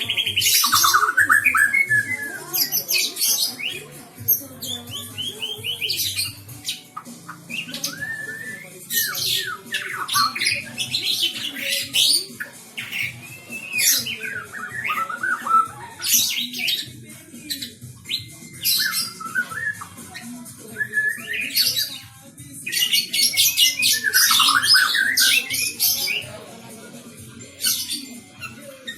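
White-rumped shama (murai batu) singing a long, varied song. Phrase follows phrase with short gaps, mixing whistled glides, fast trills and harsh squawking notes.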